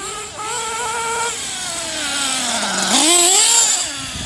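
Kyosho Inferno NEO ST 3.0 RC stadium truck's small two-stroke nitro engine running at high revs. It holds a high pitch, then winds down off the throttle, and about three seconds in revs up sharply to its loudest before easing off near the end.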